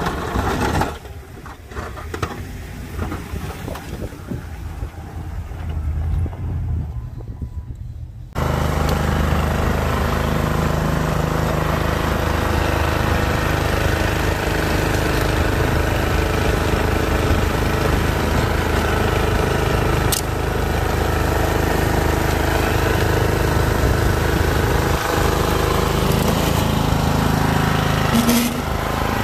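After about eight seconds of quieter low rumble, a tracked two-stage snow blower's small gasoline engine comes in loud and runs steadily under load while it throws snow.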